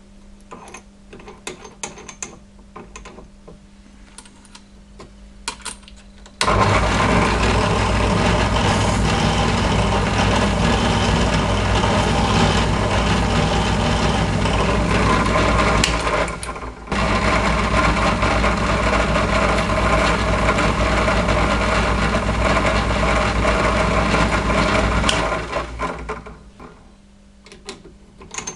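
Drill press spinning a stainless steel pin with its end pressed against a 400-grit sandpaper block to polish it: a loud, steady motor and sanding noise. It starts suddenly about six seconds in, breaks off briefly in the middle and stops a few seconds before the end. Light clicks and taps of handling come before and after.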